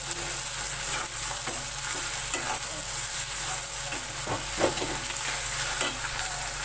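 Nearly cooked bitter gourd and onion sizzling in a metal kadhai as a metal spatula stirs and turns it over, with scattered scrapes and knocks of the spatula against the pan over a steady frying hiss.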